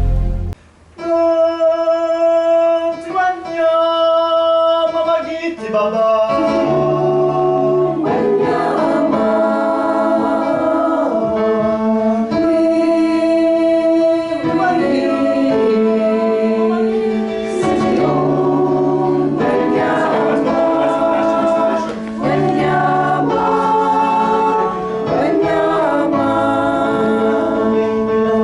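A choir singing a slow piece in long held chords, with a lower part joining about six seconds in.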